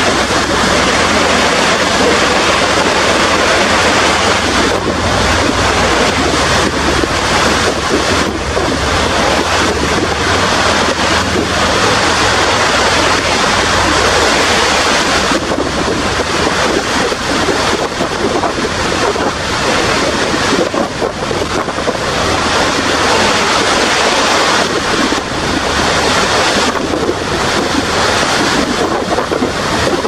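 Steady rushing of Niagara's American Falls pouring onto the rocks at its base and churning the river below, with gusts of wind buffeting the microphone.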